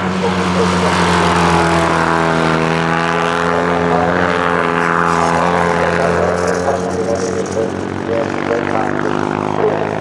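Vintage racing sidecar outfits' engines running hard at high revs, a continuous droning engine note whose pitch lifts a little and then eases back.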